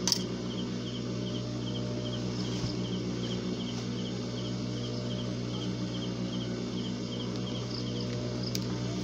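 An insect chirping in short, regular double pulses about twice a second, over a steady low hum. A single sharp click comes just at the start.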